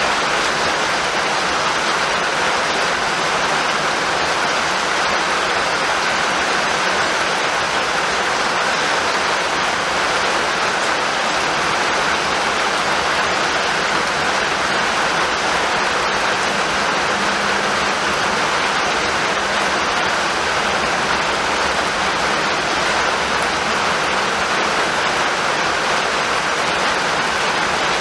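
Steady, even rainfall hissing without a break.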